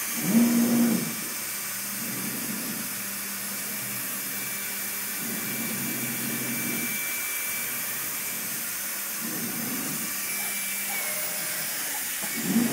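2007 MultiCam 3000 Series CNC router running a job in the air with nothing to cut: a steady hiss from its compressed-air-cooled Colombo spindle, with the gantry's axis moves coming and going every few seconds as a low machine whine, loudest about half a second in.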